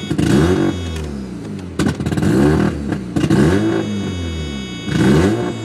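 Mazda RX-7 FC's turbocharged 13B rotary engine revved in about four throttle blips, each rising and falling back toward idle.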